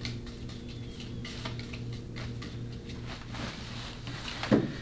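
Faint, irregular scratchy strokes of a contact-cement brush spreading glue over the sole of a marionette's foot, over a steady low electrical hum. A short thump comes near the end.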